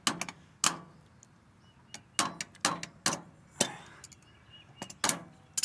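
Hammer tapping a small metal pin into a mower's wheel axle: about eight sharp metal-on-metal knocks, mostly in pairs about half a second apart, with short pauses between.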